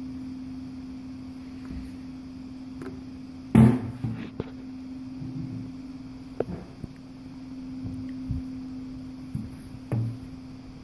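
A dog knocking an empty plastic coffee canister about on a rug: a handful of hollow knocks and thuds, the loudest about three and a half seconds in, another near the end. A steady low hum runs underneath throughout.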